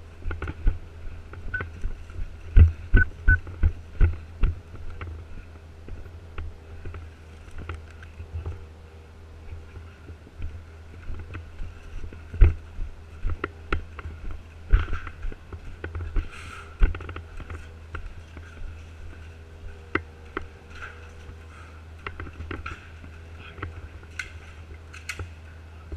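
Footsteps and gear knocking from a player moving on foot, with a quick run of steps a few seconds in and scattered knocks after, over a steady low rumble.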